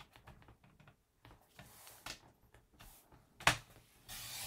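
Paper trimmer's blade slid along its track, cutting through folded cardstock with a short swish near the end, after light clicks and rustles of the card being lined up under the rail, and a sharper click about three and a half seconds in.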